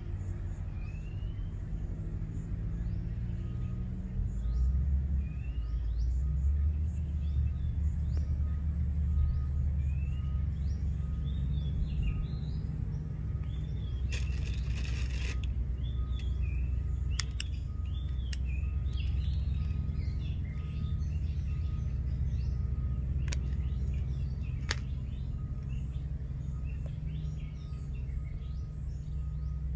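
Outdoor ambience: a steady low rumble with small birds chirping on and off throughout. A short hiss comes about halfway, followed by a few sharp clicks.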